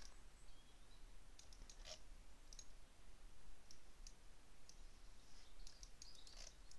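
Computer mouse clicking: a scattering of faint, short clicks, some in quick pairs, over a low steady hum.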